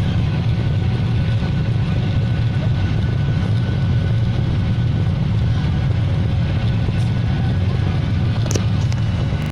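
Airliner engines running steadily during takeoff, a continuous low rumble with a faint whine. A couple of short clicks come near the end, and the sound cuts off abruptly.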